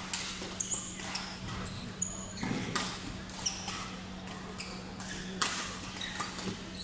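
Badminton doubles rally: rackets striking the shuttlecock in sharp cracks, the loudest a little over two seconds in and again past five seconds, mixed with short high squeaks of court shoes on the floor. A steady low hum runs underneath.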